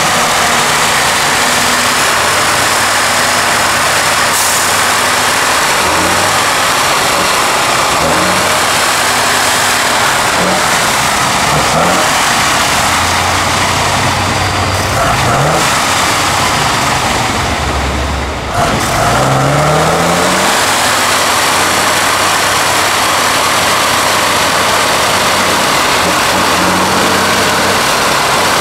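Tatra 813 8x8 truck's engine working hard under load as the truck crawls through deep mud, revving up and falling back again and again. It dips briefly about eighteen seconds in, then revs rising again.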